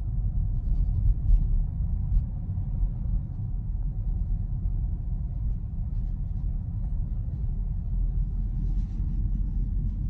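Steady low rumble of a car's road and engine noise, heard from inside the cabin while driving.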